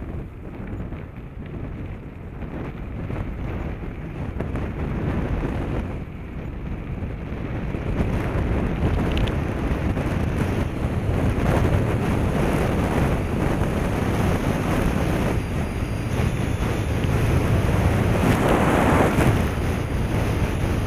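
Wind buffeting an action camera's microphone as it moves along a gravel road, a heavy low rumble. It grows louder through the first half and is loudest shortly before the end.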